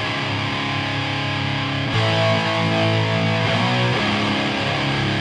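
Rock music with distorted electric guitar, shifting chords about two seconds in and again near four seconds.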